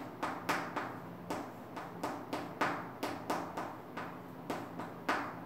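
Chalk writing on a blackboard: a quick run of sharp taps and short scratchy strokes, about three a second, as the chalk hits and drags across the board.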